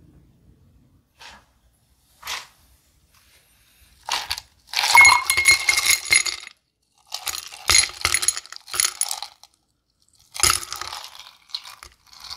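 Clear ice cubes tipped and dropped into a rocks glass, clinking against the glass and each other in several bursts, the loudest a few seconds in, after a couple of single light clicks.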